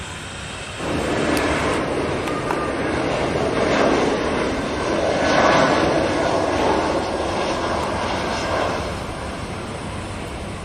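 Airbus A320-family jet airliner's engines on final approach and touching down. The jet noise comes in abruptly about a second in, swells for several seconds, then eases off near the end.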